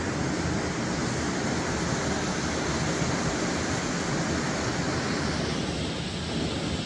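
Steady rushing noise of water jetting from a dam's outlet into the river below, with wind buffeting the microphone.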